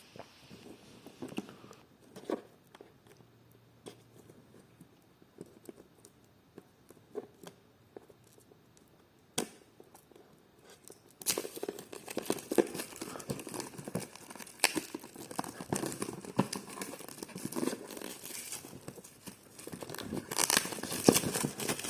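Earphone packaging being handled and opened by hand: scattered light taps and clicks at first, then from about 11 seconds in a busier run of crinkling and tearing of the wrapping and box.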